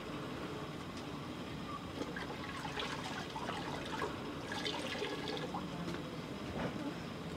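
Water poured from a plastic jerry can into cupped hands, trickling and splashing in small bursts from about two and a half to five and a half seconds in, over steady background noise.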